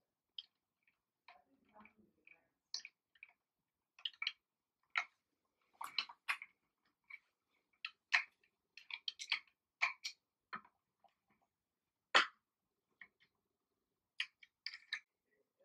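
Hand screwdriver driving a screw into the plastic joint hub of a baby rocker's tube frame: a string of irregular sharp clicks and creaks as the screwdriver is turned and re-gripped, the loudest about twelve seconds in.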